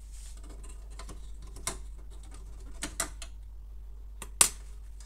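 Light clicks and knocks of the plastic housing and hinge parts of a Canon MF216n printer being handled, with a sharp knock about four and a half seconds in.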